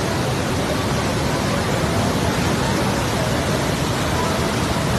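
Parvati River in spate rushing past in flood: a steady, loud rush of water with no let-up.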